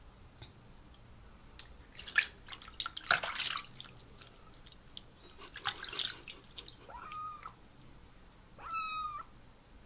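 A small kitten mewing twice, two short high cries about seven and nine seconds in, while it is bathed in a sink. Water splashes and sloshes around it in the first few seconds.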